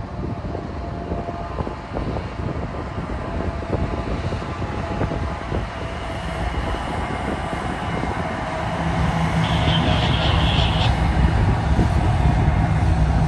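Two Norfolk Southern diesel locomotives approaching and passing at the head of a double-stack intermodal freight train: engines running and wheels rumbling on the rails, growing louder as they draw level. A brief high squeal about ten seconds in.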